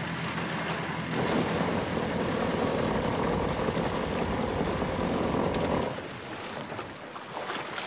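Small jet boat's engine running with a steady drone, which drops away abruptly about six seconds in, a sign of something caught in the jet.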